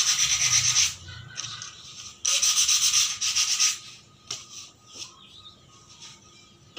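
Wood being sanded by hand with sandpaper: two spells of quick scrubbing strokes, the first ending about a second in and the second running from about two seconds in for a second and a half, then a few light taps.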